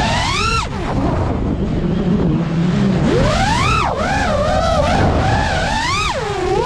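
FPV quadcopter's motors whining, the pitch sliding up and down with the throttle as the drone swoops. The whine drops away about a second in, then climbs sharply again around three seconds and once more near six seconds.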